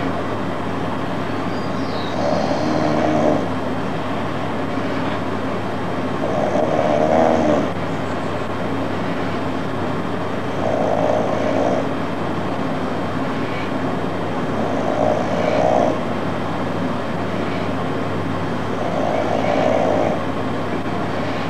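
A person snoring, one snore about every four seconds, over a steady hiss of rain and a low hum.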